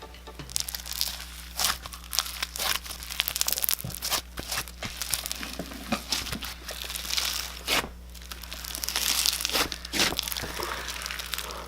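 Thick clear slime packed with glitter being squished and handled up close, giving dense, irregular crackling, sticky clicks and small pops.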